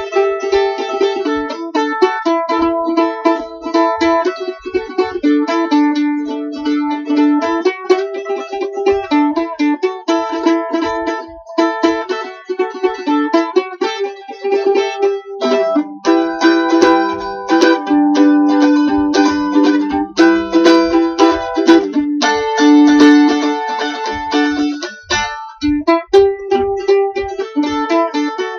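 Mandolin played solo, a quickly picked melody forming an instrumental break between verses of a song.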